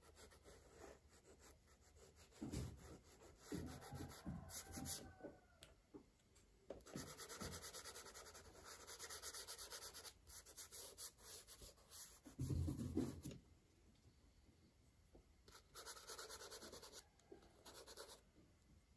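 Wax crayon rubbing and scratching on paper in runs of quick repeated strokes, faint, with a dull bump a little past the middle.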